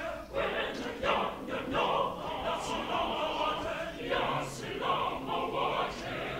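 Mixed choir of men's and women's voices singing in performance.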